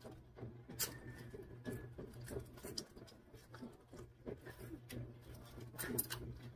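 Soft eating sounds of shrimp being chewed and sucked by hand: irregular small clicks and smacks from the mouth and shell. A low steady hum runs underneath.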